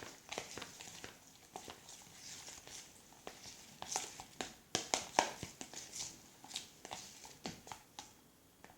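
Freshly mixed white-glue and borax slime being kneaded and squeezed by hand, giving irregular sticky clicks and squelches. The clicks are a little louder around four to five seconds in.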